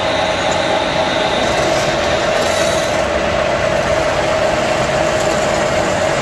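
Old belt-driven metal lathe running, spinning a steel sprocket blank in its chuck: a steady mechanical din with a constant whine. A brief high hiss comes about halfway through.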